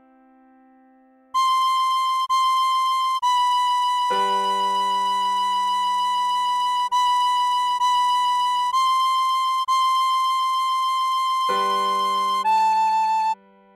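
Tin whistle playing a slow melody of held notes on high C, B and A, each note started afresh, over sustained piano chords that come in about four seconds in and again near the end.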